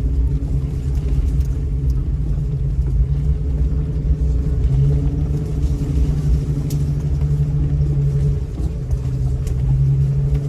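A 2000 Jeep Cherokee's engine running steadily at low speed as the Jeep crawls down a rough 4x4 trail, a low rumble with an engine hum. The hum gets louder about five seconds in, eases off past eight seconds, and strengthens again near the end.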